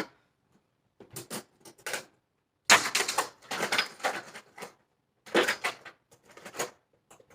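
Small hard objects clattering and clicking as they are handled, knocked together and set down, like rummaging through a container of hair things. The clatter comes in several short flurries with pauses between, the busiest about a third of the way in.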